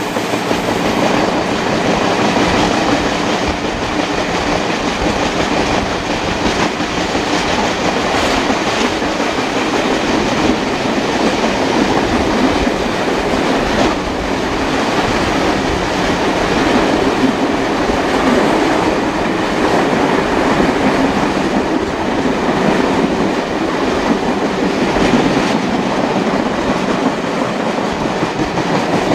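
Steam-hauled heritage passenger train running along the track, heard from an open carriage window: a steady, loud rush of wheel and rail noise, with wheels clicking over rail joints.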